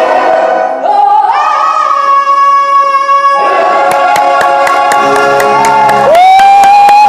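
A woman belting in musical theatre style over a full pit orchestra: a long held high note, then orchestral playing with sharp repeated percussion hits, then another loud held note near the end that falls away as it cuts off.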